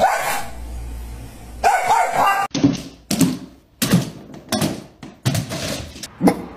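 A dog barks at its own reflection in an oven door, with two short barks near the start. Then comes a run of about seven dull thumps, roughly one every two-thirds of a second, from a dog's paws as it bounds down a wooden hallway floor.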